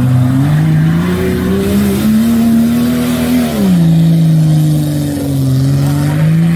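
A 4x4 SUV's engine revving hard under load as it drives across a steep slope. Its pitch climbs over the first couple of seconds, holds, drops about halfway through, then creeps up again near the end.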